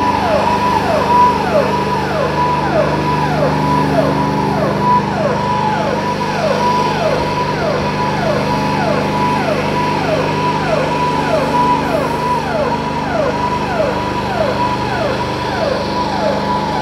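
A warning siren sweeping down in pitch over and over, about twice a second, over the steady hum of the engine-driven disinfectant sprayer spraying mist.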